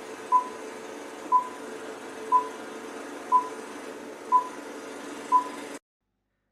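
Six short electronic beeps, evenly one a second, over a steady hum, cut off suddenly near the end.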